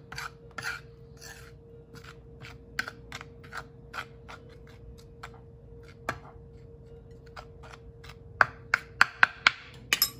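A kitchen utensil scraping and stirring through seasoned flour on a plate, in short repeated strokes about two or three a second, with a quick run of louder, sharper clicks against the plate near the end.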